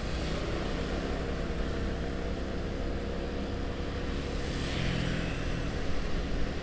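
Motor scooter engine running while riding in traffic, with wind and road noise on the helmet-mounted mic. A brief louder rush of noise comes about five seconds in.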